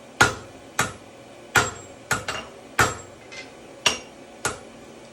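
Blacksmith's hammer striking hot iron on the anvil: about nine ringing metal blows at an uneven pace, with a quick double blow a little after two seconds in.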